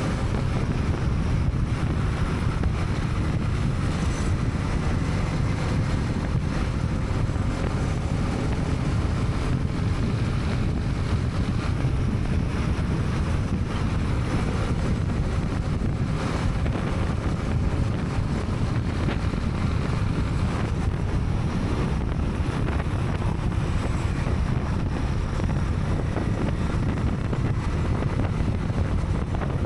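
Wind rushing over an action camera's microphone, with a Honda CB300R's single-cylinder engine running underneath at a steady cruise.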